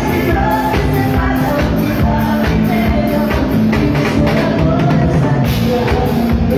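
A live bailão dance band playing over a steady drum-kit beat, with electric bass and guitars, while a man and a woman sing into microphones.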